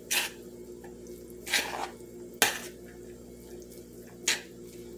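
A metal spoon stirring and scraping through chopped chicken salad in a large bowl: four short scrapes about a second apart over a faint steady hum.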